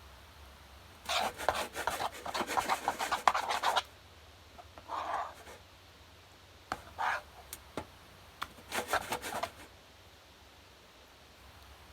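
Spoon scraping and stirring a runny glue-and-activator slime mixture in a bowl, in a long burst of quick scrapes followed by several shorter ones with pauses between.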